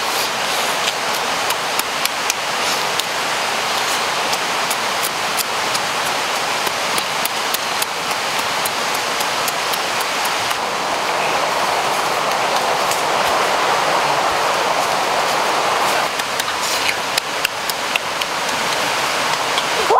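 A steady rushing noise like rain or running water, with many small sharp clicks scattered through it.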